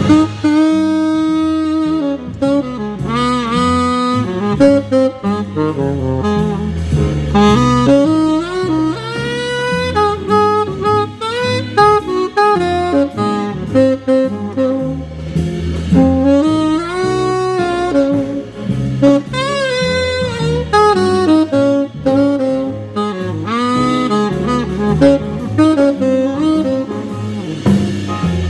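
Tenor saxophone playing a blues solo, up close and dominant, with sliding, bent notes and quick runs. Beneath it, a band accompanies with a line of stepping low notes.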